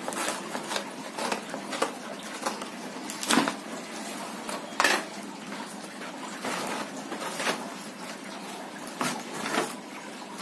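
Cardboard box being slit open along its edge with a blade and its flap pulled back, with irregular scraping, crackling and tearing of cardboard, a few sharper rips standing out.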